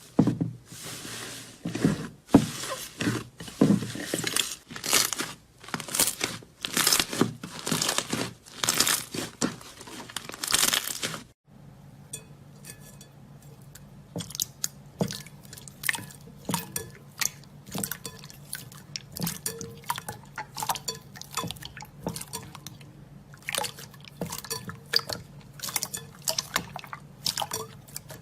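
Slime being squeezed and pressed by hand, with loud crunchy, crackling squishes about once or twice a second. After a cut about eleven seconds in, it turns to quieter clicks and small pops over a steady low hum.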